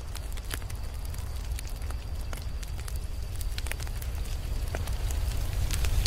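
Wood fire burning, with irregular sharp pops and crackles of the logs over a steady low rumble.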